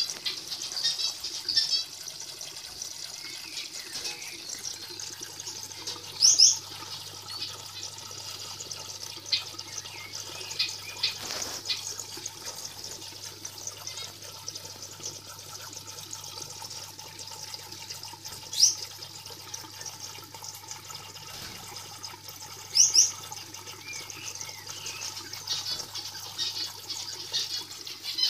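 Aquarium water trickling steadily over a low steady hum, with short high bird chirps breaking in several times; the chirps are the loudest sounds.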